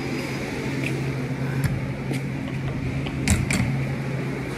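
A steady low mechanical hum, with a few knocks and rubs from the phone being handled close to the microphone; the loudest knock comes about three seconds in.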